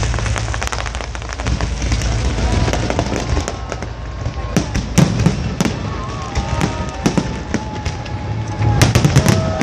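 Fireworks display going off: a deep rumble of bursts at first, then rapid sharp crackles and pops, with gliding whistle-like tones from about two and a half seconds in.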